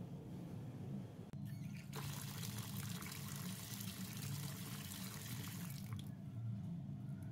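Tap water pouring into a basin of water with vegetables in it, a steady splashing hiss that starts about two seconds in and eases off about six seconds in.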